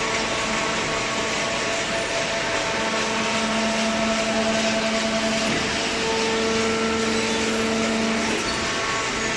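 Corrugated cardboard baler machinery running: a steady din of machine noise with a hum whose pitch shifts a few times, typical of a hydraulic pump changing load.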